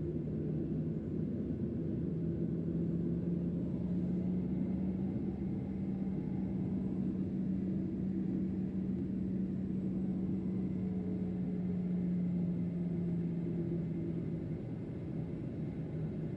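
Boeing 737-800 cabin noise on the ground: a steady low engine hum over airflow rumble. The hum rises slightly in pitch about a second in and settles back down near the end.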